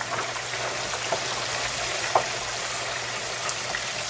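Floured chicken wings deep-frying in very hot oil: a steady sizzle with scattered pops, the sharpest about two seconds in.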